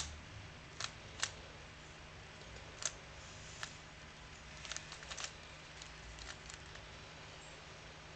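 Plastic 3x3 Rubik's Cube being turned by hand: faint, irregular clicks of the layers snapping round, some bunched together in quick turns about halfway through.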